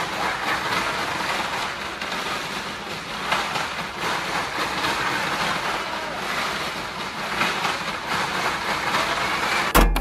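Mountain bike rattling and clattering over a rough dirt trail, with tyre noise and wind rushing past. Just before the end there is one loud knock, after which the sound changes abruptly.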